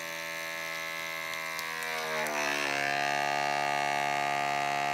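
Kitchenboss G210 vacuum sealer's pump running with a steady electric hum. About two seconds in, its pitch drops and it gets louder as the bag draws down tight around the steak, then it holds steady.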